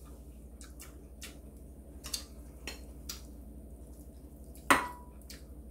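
Eating at the table with metal chopsticks: scattered light clicks against bowls and the ramen pot, then one louder clink near the end that rings briefly.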